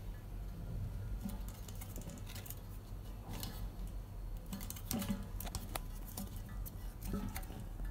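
Scattered clicks and light taps of a HOKAH LPG gas regulator being handled and fitted onto a gas cylinder's valve, with a few sharper knocks about five seconds in.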